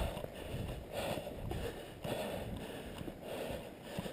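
Soft, irregular footsteps on a concrete floor with clothing and gear rustling, from a person walking.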